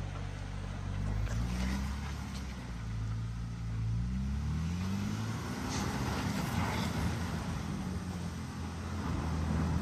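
Tank 300 SUV's engine revving up and down under load as it crawls up a steep mud slope, its pitch rising and falling several times.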